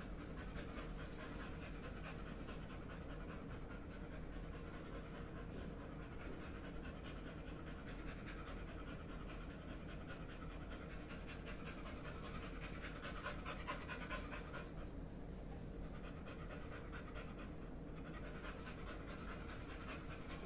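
Yellow Labrador retriever panting hard, a steady run of quick open-mouthed breaths that breaks off briefly a couple of times.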